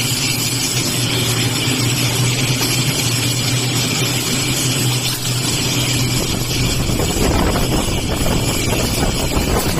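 Machinery running with a steady hum and a constant hiss. About six seconds in the hum drops away and a rougher low rumble takes over.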